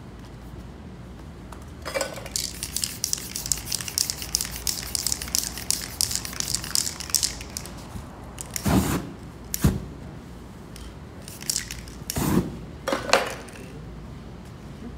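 Aerosol spray-paint can hissing in many rapid short bursts for about five seconds, starting about two seconds in. Then paper masks and sheets being handled, with a few dull knocks and a sharp tap.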